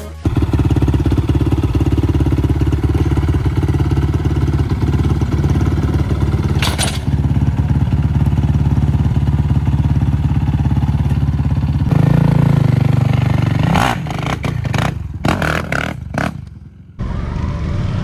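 Quad bike engine running with a steady throb, then revved louder about twelve seconds in as the quad is ridden off a trailer. The sound turns choppy afterward and briefly drops out near the end.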